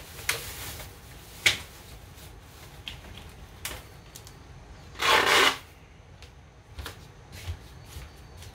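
Kitchen handling sounds during food preparation: scattered light clicks and knocks, with a louder half-second burst of noise about five seconds in.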